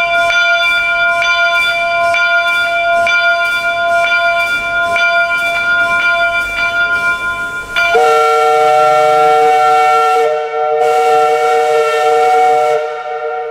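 The brass locomotive bell on LNER A4 4489 Dominion of Canada, ringing steadily at about one and a half strikes a second. About eight seconds in, the bell stops and a locomotive chime whistle sounds a held chord for about five seconds, then fades.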